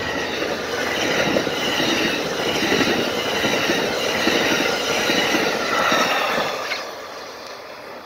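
Amtrak Superliner passenger cars passing at speed, a loud rumble of steel wheels running over the rails with a rapid clatter. The sound falls away near the end as the train moves off.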